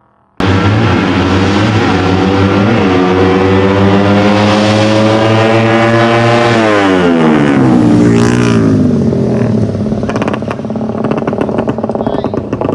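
Two drag-racing motorcycles at full throttle, engine pitch climbing steadily as they accelerate down the strip. About seven seconds in the pitch drops sharply as they pass by, and the sound thins out into a rougher, crackling note as they move away.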